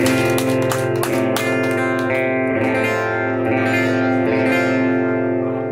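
Acoustic guitar strummed, its chords ringing on and sustaining, then fading a little near the end.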